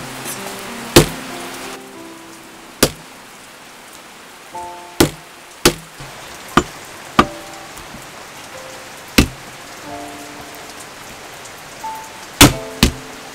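Cleaver knocking down onto a thick wooden chopping block as raw pork is sliced: about ten sharp knocks at uneven intervals, over soft background music.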